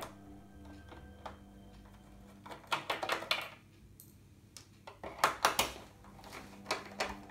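Screws being taken out of a computer's plastic back panel with a screwdriver: two short bursts of clicking and rattling, about three seconds in and again about five seconds in.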